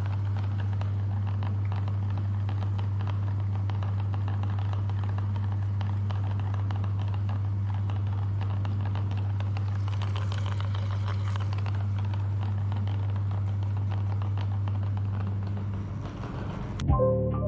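Electric meat grinder running steadily: a deep, even motor hum with fine crackling above it as it grinds. The grinder fades out near the end and music with sharp ticks comes in.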